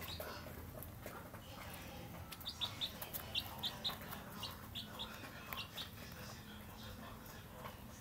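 Young chicks peeping: a run of about a dozen short, high peeps in the middle.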